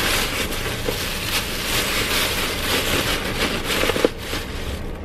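Plastic bag rustling and crinkling as it is handled, with a sharp click about four seconds in; the rustling stops just before the end.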